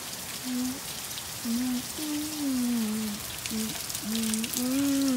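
Heavy hurricane rain falling steadily and dripping off a roof eave, with a voice humming a few short, low notes over it, some of them sliding down in pitch.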